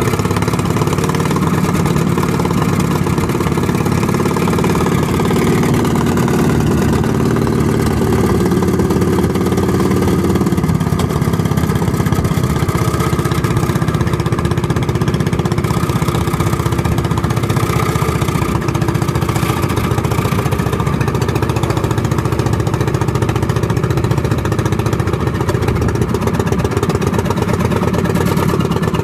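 Small gasoline boat engine running steadily, its note shifting slightly a couple of times.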